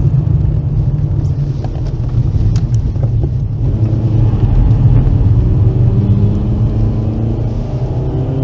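Volkswagen Golf V's 1.4-litre petrol four-cylinder engine and road rumble heard from inside the cabin while driving a lap. From about halfway through the engine pulls harder, its note rising steadily to the end.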